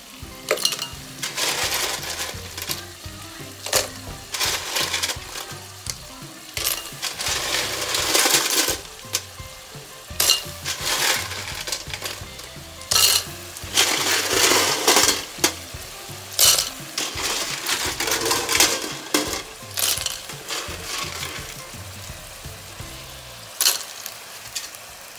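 Handfuls of snails dropped and stirred into a hot aluminium pot on a gas burner, the shells clattering against the metal and each other in irregular bursts, with sizzling.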